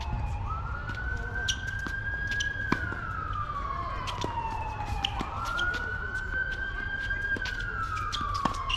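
An emergency-vehicle siren in a slow wail: the tone rises quickly, holds, then falls slowly, about every five seconds. Sharp knocks of a ball being hit come through it, the loudest a little under three seconds in.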